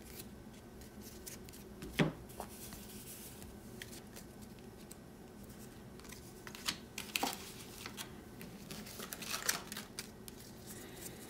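Trading cards being handled and stacked on a table mat: faint rustling with scattered light taps, the sharpest about two seconds in and a short run of them near the end.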